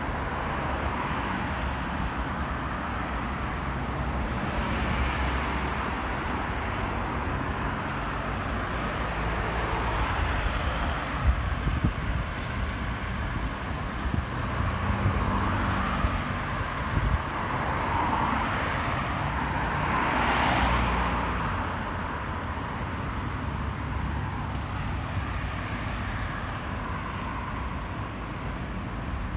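City street traffic: a steady rumble of road traffic with cars passing one after another. The loudest pass comes about twenty seconds in.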